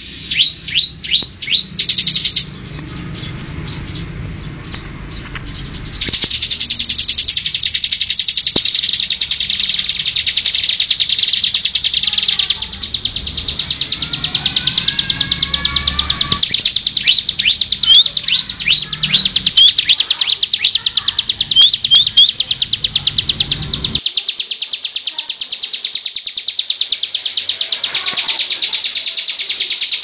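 Bar-winged prinia (ciblek) singing a very fast, high-pitched trill, with short sharp sweeping notes dropped in near the start and again later. The song goes quieter for a few seconds early on, then runs on loud and unbroken.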